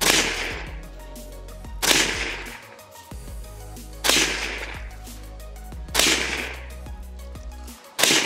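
Daniel Defense DDM4 V7P AR-15 pistol in 300 Blackout firing Fiocchi 150-grain FMJ rounds: five single shots about two seconds apart, each report trailing off in an echo.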